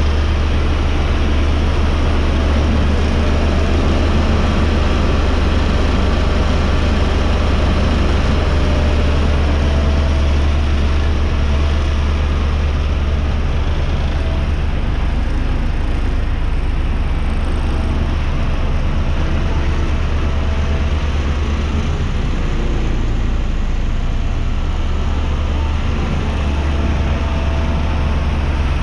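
Diesel engine of a 2005 Ingersoll Rand SD-100D 84-inch single-drum roller running steadily with a deep, even hum as the machine drives across the dirt.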